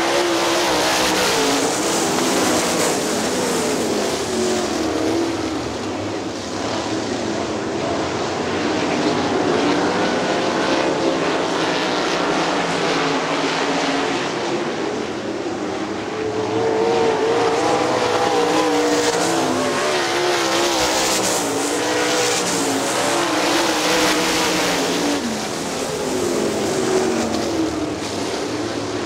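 A field of winged 410 sprint cars racing on a dirt oval, their 410-cubic-inch V8 engines running loud under throttle. The engine note rises and falls in pitch again and again as the cars come through the turns and pass by.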